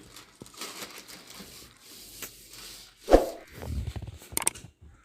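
Cloth rustling and handling noises, as of a blazer being put on and adjusted, with a sharp thump about three seconds in and a few clicks near the end.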